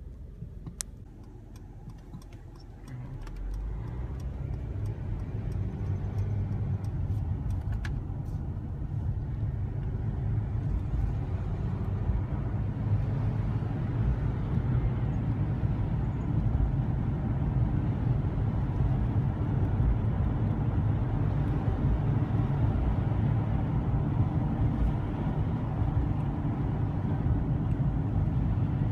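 Inside the cabin of a 2015 Mercedes-Benz C300 4MATIC, the low rumble of its 2.0-litre turbocharged four-cylinder engine and the tyres as the car pulls away from a stop and drives on. The rumble steps up about three seconds in and keeps building as the car gathers speed.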